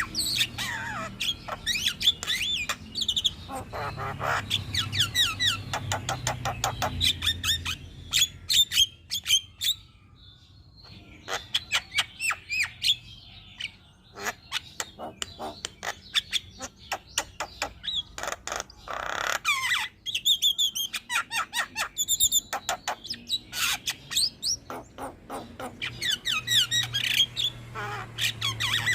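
Javan myna (jalak kebo) singing a varied, rapid stream of harsh squawks, clicking notes and short whistled glides, with a brief quieter pause about a third of the way through.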